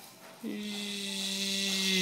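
Battery-powered toy airplane fork buzzing: a steady electric hum with a hiss over it, starting about half a second in and growing slightly louder.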